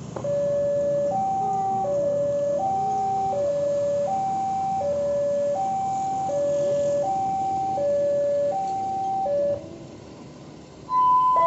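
Railway level-crossing warning alarm sounding a two-note hi-lo tone, each note about three-quarters of a second, repeating steadily while the crossing barriers come down. It stops a little before the end. Shortly after, a different, steadier pair of higher tones starts.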